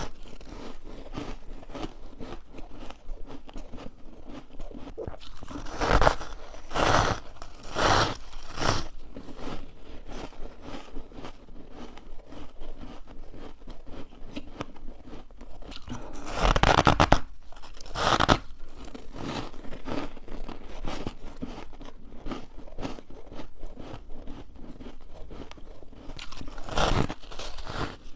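A person biting into and chewing dry freezer frost ice in close-up. Loud crisp crunches come in clusters: several about a quarter of the way in, a longer one past the middle, and one near the end. Quieter crackling chewing fills the gaps between them.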